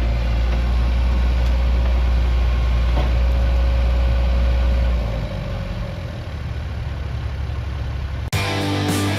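Diesel engine of a CAT 303.5E2CR mini excavator running steadily. Its deep low rumble drops away about five seconds in and the machine runs on a little quieter. Guitar music cuts in abruptly near the end.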